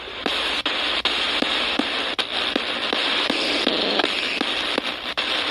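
P-SB7 spirit box sweeping through radio stations: a steady hiss of static chopped by clicks about three times a second, with brief fragments of broadcast sound between them.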